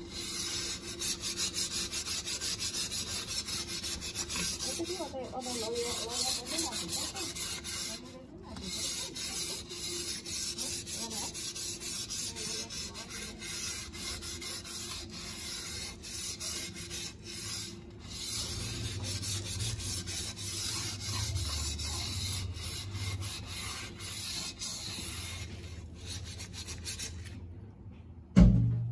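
Cloth scrubbed back and forth along a grimy window frame and track: a steady rasping rub in quick strokes, with a couple of short pauses. It stops shortly before the end, followed by a single loud thump.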